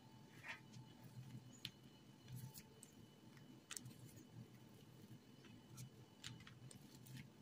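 Near silence: faint room hum with a few scattered, faint clicks.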